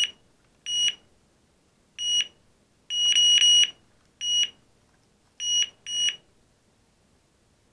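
Electronic carp-fishing bite alarm giving a high-pitched beep about eight times at uneven intervals, with one longer beep about three seconds in. It is being set off by hand during a sensitivity check.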